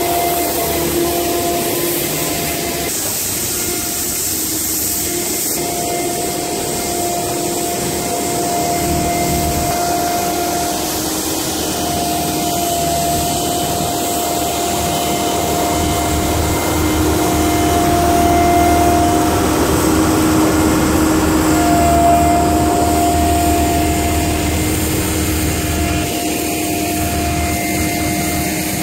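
Heavy earthmoving machinery running on a construction site: steady diesel engine noise with a whine that fades in and out, changing abruptly a few times.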